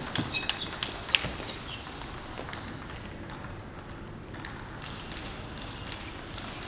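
Table-tennis balls clicking off rackets and tables in uneven, overlapping knocks from practice rallies. The louder clicks come in the first second or so, fainter ones after, over a steady hall hiss.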